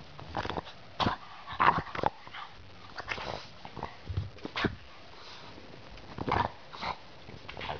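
Boston terrier sniffing and snuffling up close at the microphone in short, irregular bursts.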